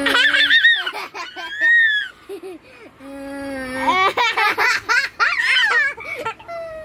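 A toddler laughing in high bursts, each round set off by a long, held, silly vocal note from an older child, once at the start and again about three seconds in.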